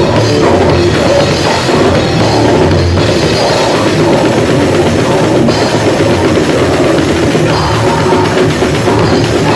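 Grindcore band rehearsing: loud, dense, distorted heavy music driven by a drum kit, playing without a break.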